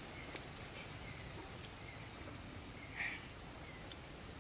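Quiet jungle ambience: a steady low hiss with faint short chirps now and then, a few small clicks, and one brief louder chirp about three seconds in.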